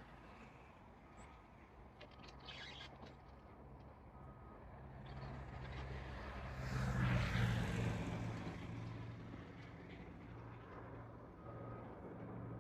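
A vehicle passing by, swelling to a peak about seven seconds in and then fading, over a steady low hum.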